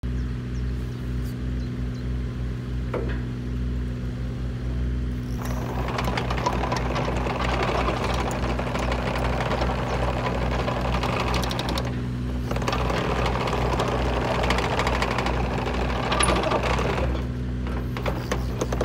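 Diesel engine of a JCB 65R-1 mini excavator running steadily. From about five seconds in, a dense rattling clatter joins it as the machine travels on its tracks and works its arm, breaking off briefly around the twelve-second mark and dying away a couple of seconds before the end.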